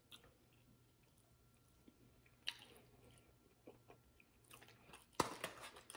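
Faint close-up chewing of a mouthful of food, with a few sharp clicks, the loudest about five seconds in.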